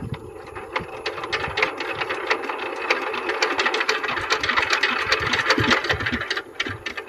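Single-cylinder diesel engine of a walk-behind power tiller being hand-cranked: a fast, even mechanical clatter builds for about six seconds and then dies away without the engine running. The owner blames water that got into the fuel tank, starving it of fuel.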